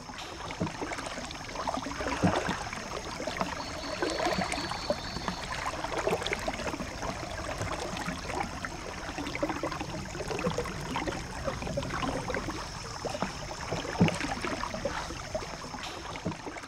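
A paddle dipping and pulling through calm water from a small boat, with uneven sloshing and gurgling and a couple of sharper splashes, about two seconds in and near the end.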